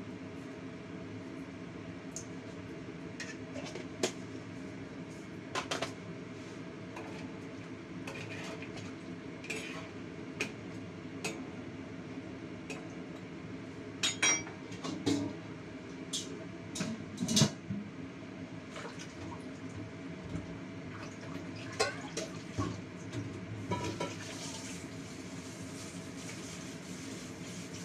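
Metal spoon and utensils clinking and scraping against a wok and a seasoning jar as the braise is seasoned and stirred, in scattered sharp knocks, loudest about halfway through. Near the end a large stainless-steel lid is set on the wok. A steady hum runs underneath.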